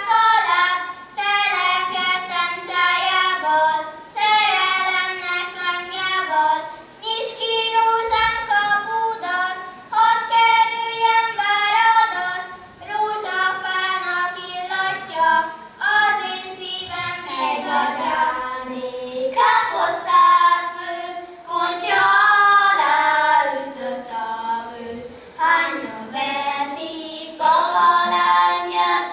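Children singing a song: one melody line in phrases of a second or two with short breaks between.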